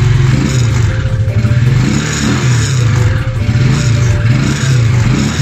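Skygo 125 motorcycle's single-cylinder four-stroke engine running and being revved by twisting the throttle, its pitch rising and falling several times, with faint background music.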